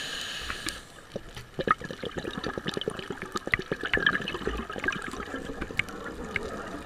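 Scuba diver breathing through a regulator underwater. An inhalation hiss ends just under a second in, then the exhaled air bubbles out in a long run of crackling gurgles.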